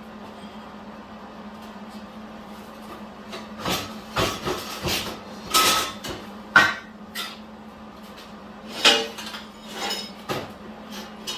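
Steel parts and tools clanking and knocking on a welding bench, in an irregular string of sharp metal knocks. They begin a few seconds in and the loudest come near the middle, over a faint steady low hum.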